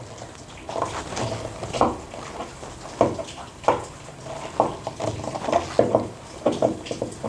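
Screwdriver tip scraping and clicking against the slotted screw heads of an old slide bolt on a wooden door: a dozen or so short metallic clicks and scrapes at irregular intervals. The tip is too wide to seat in the narrow slots.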